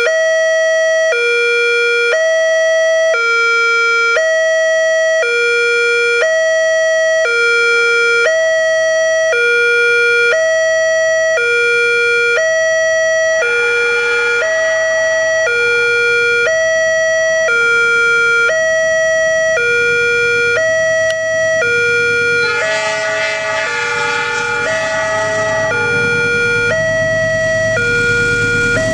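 Railway level-crossing warning alarm from a pole-mounted loudspeaker: an electronic two-tone signal alternating evenly between a higher and a lower tone, each held about two-thirds of a second, warning that a train is coming. In the last several seconds the rumble of an approaching diesel locomotive grows beneath it.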